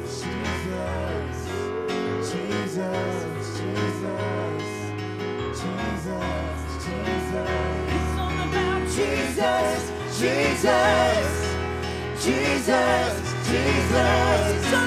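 Live gospel worship music: a band plays steady sustained low chords with light drums and percussion while singers improvise wordless, wavering vocal lines. From about nine seconds in the singing grows louder, with quick vocal runs.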